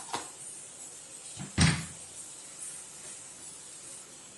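A steel spoon stirring thick potato masala in a steel kadai: a light click near the start and one heavier knock against the pan about a second and a half in.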